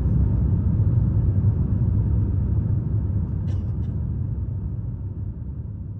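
Airliner cabin noise during the climb after takeoff: a steady low rumble of engines and airflow heard from inside the cabin, slowly fading, with two faint clicks about three and a half seconds in.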